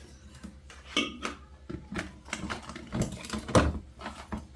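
Food items and containers handled and set down on refrigerator shelves: a series of irregular clicks, knocks and clatters, the loudest about three and a half seconds in.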